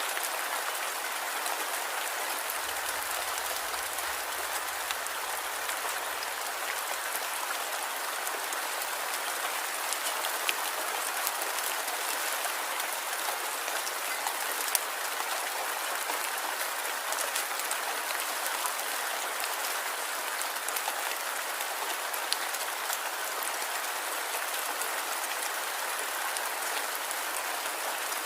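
Light rain falling steadily: a dense, even hiss of drops, with scattered sharper ticks of single drops now and then.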